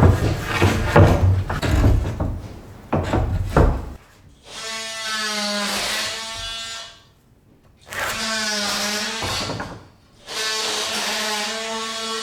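Knocking and clattering, then a DeWalt oscillating multi-tool buzzing at a steady pitch in three runs of two to three seconds each, the first starting about four seconds in, as it cuts old staples off flush.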